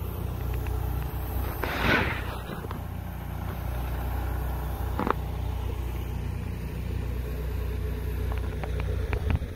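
A steady low engine drone, with a whooshing swell about two seconds in, one sharp click around five seconds, and a few light clicks near the end.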